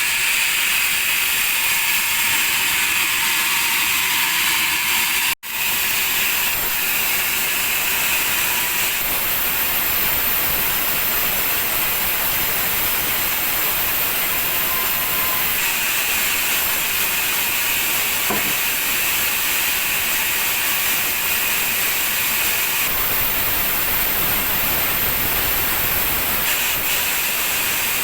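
Sawmill saw running and cutting meranti timber, a steady loud hiss. The sound drops out for a moment about five seconds in and its tone shifts abruptly a few times.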